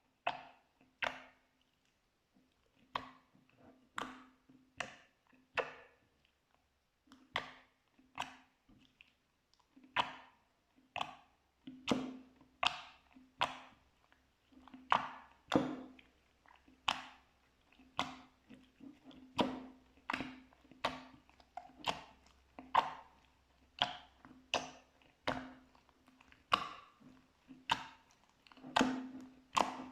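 Slime being pressed and worked by hand, giving a run of sharp, wet clicking pops about one or two a second at an uneven pace.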